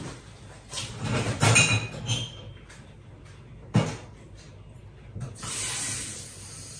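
Kitchen handling sounds: a clatter of utensils or containers about a second in, a single sharp knock near the middle, then a short hiss near the end.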